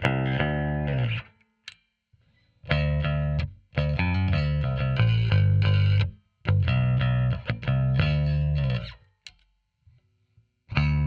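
Squier Bass VI six-string bass played through a Line 6 Helix amp model with an Ampeg 4x10 cabinet. It plays short riffs of plucked notes in four phrases, each stopping abruptly, with brief pauses between them.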